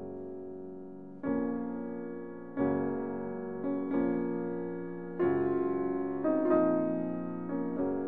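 Slow, calm background piano music: notes and chords struck about every second and left to ring out and fade.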